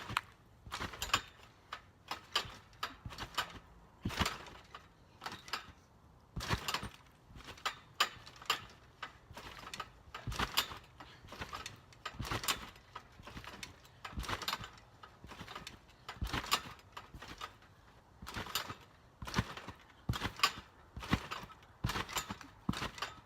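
Someone bouncing on a trampoline: a steady run of sharp mat-and-spring noises, about one to two a second.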